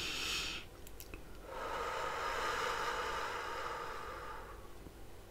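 A woman breathing audibly: a breath in that ends under a second in, then a long, slow breath out that fades away over about three seconds.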